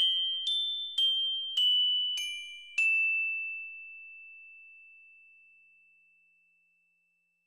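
Music box playing the closing notes of a slow melody: single high plucked notes about every half second, then a last note that rings on and fades away over about four seconds.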